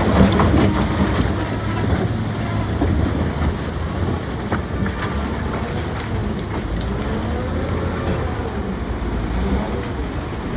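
Heavy construction machinery running: a steady low engine rumble with occasional faint knocks and some wavering squeals.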